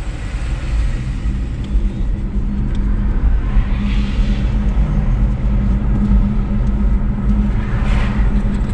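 Car driving: a steady low rumble of engine and road noise with a constant hum, and two brief swells of hiss, about four seconds in and again near the end.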